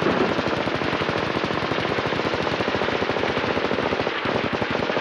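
Sustained automatic gunfire from a machine gun: a rapid, even stream of shots that keeps going without a break.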